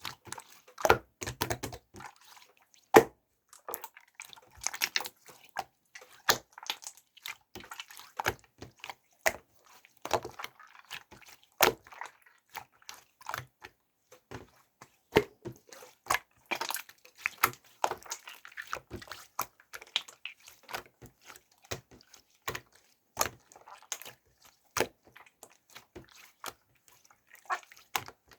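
Irregular small wet clicks and taps, several a second, from material being worked by hand on a wooden board.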